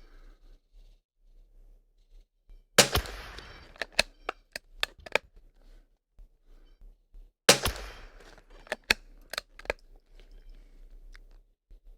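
Two shots from a Kimber .22 LR rifle, about five seconds apart, each a sharp crack followed by a quick string of fainter cracks.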